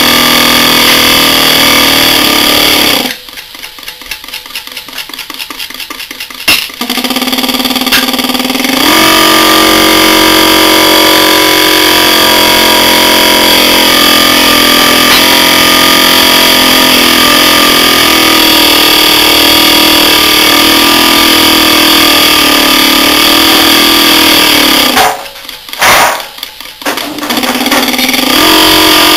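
Bulkon hermetic refrigerant compressor, opened up and running dry with no oil as it is run to destruction: a loud, steady mechanical hum. About three seconds in it drops much quieter to a fast ticking for several seconds before the loud hum returns, and the same happens again near the end.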